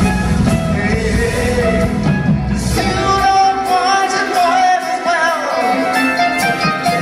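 Live rock band playing loudly: a Les Paul-style electric guitar takes the melodic lead, with pitch bends, over bass, drums and cymbals. The heavy low bass drops away about three seconds in.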